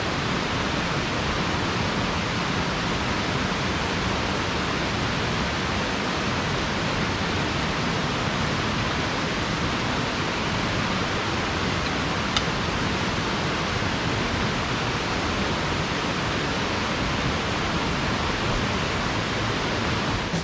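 Steady, even rushing noise of water, with one faint click about twelve seconds in.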